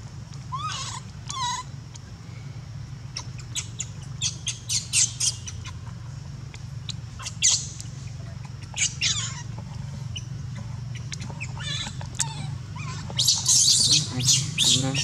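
Baby macaque screaming in short, shrill squeals, some of them falling in pitch, coming in clusters and loudest near the end.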